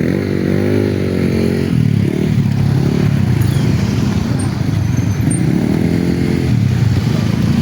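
Motorcycle engines accelerating past one after another, each pass rising and bending in pitch, over a steady rumble of road traffic.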